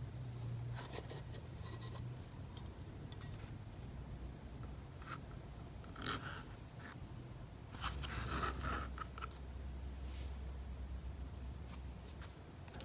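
Hands pressing, squishing and stretching cloud slime: soft, scattered crackles and rustles, busiest about six seconds in and again around eight to nine seconds.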